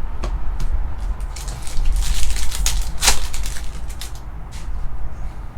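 Trading cards being handled: rustling, sliding and short clicks as cards and their packaging are shuffled, with one sharper click about three seconds in, over a steady low hum.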